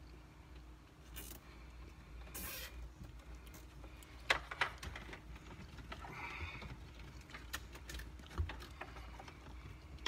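Wiring harness cables and plastic dash parts being handled: short rustles, then scattered sharp clicks, the loudest about four and a half seconds in.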